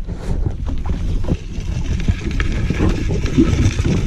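Wind rumbling on the microphone, with many small scattered clicks and knocks over it.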